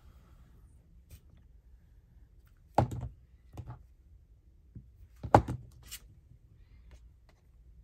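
Two sharp knocks on a tabletop about two and a half seconds apart, with a few lighter taps around them, as journal pages and craft tools are handled and set down.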